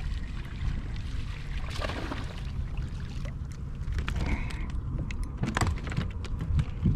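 Steady wind rumble on the microphone and water against a kayak, with scattered clicks and knocks from the spinning reel, rod and line as a small speckled trout is reeled in and lifted out of the water.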